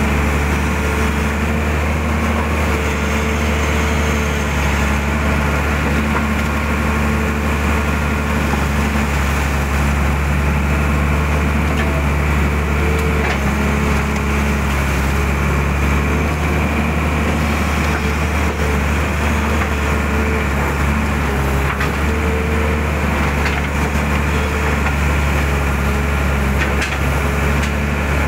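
Mitsubishi excavator's diesel engine running steadily under load as the boom and bucket dig mud from a ditch, with a humming tone that rises and drops away every few seconds as the hydraulics work, and a few faint clicks.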